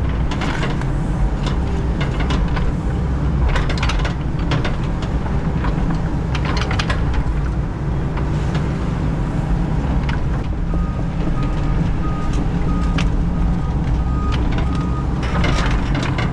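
Excavator diesel engine running steadily as the bucket works dirt back into a trench, with several sharp clanks. About ten seconds in, a run of short beeps sounds, about two a second, for some four seconds.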